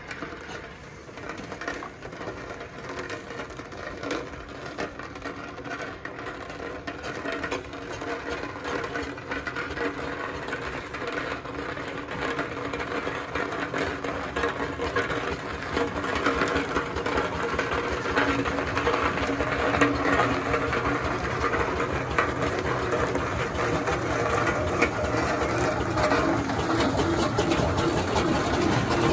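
Steam road roller engines running as the rollers drive past, a fast, even mechanical clatter and chuff from the engine's motion. The sound grows steadily louder as a roller comes close.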